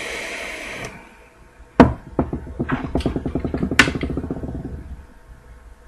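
A hit drawn through a rebuildable dripping atomizer: a steady airflow hiss for about a second. Then an exhale puffs onto a headset boom microphone, a rapid rattling flutter with a sharp pop at the start and another near the end, dying away after about three seconds.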